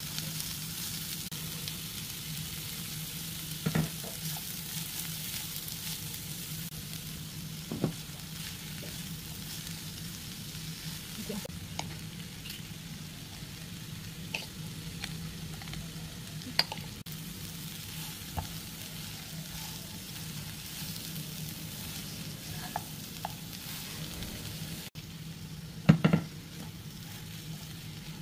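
Shredded torch-ginger sambal and fish sizzling as they are stir-fried in a non-stick frying pan, a steady hiss under the spatula's scraping. A few sharp knocks of the spatula against the pan stand out, the loudest near the end.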